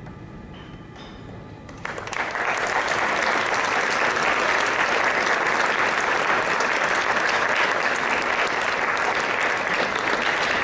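Audience applauding, breaking out suddenly about two seconds in over a few faint closing notes of music, then holding steady and loud.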